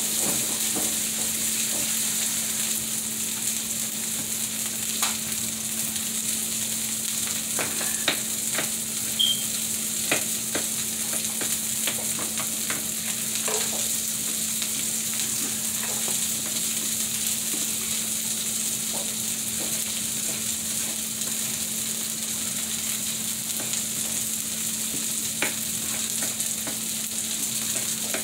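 Green onions sizzling steadily in a hot skillet, over a steady low hum, with a knife tapping now and then on a wooden cutting board as onion is chopped.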